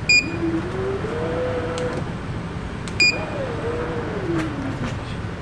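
Tesla Model 3 aftermarket power liftgate test run: the kit's buzzer gives a short beep, then the electric strut motors whine as they drive the trunk lid, the pitch rising. A second beep about three seconds in, and the strut motors run again, their whine falling in pitch.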